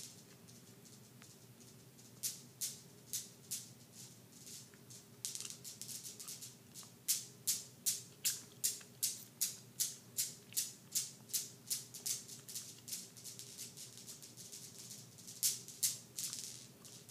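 Newton's cradle's metal balls clacking against each other as a cat bats them: a regular run of sharp clicks, about two or three a second, that fades away and picks up again with a couple of louder clacks near the end.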